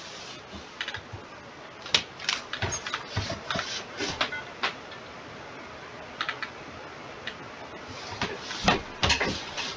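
Irregular clicks and taps from computer keyboard and mouse use, over faint steady hiss. There is a busy run of clicks from about two to five seconds in, a quieter stretch, then another run near the end.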